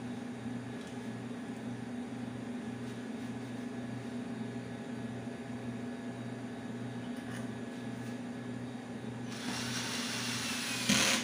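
Cordless drill driving a screw into a chair seat, running for about a second and a half near the end, over a steady low hum.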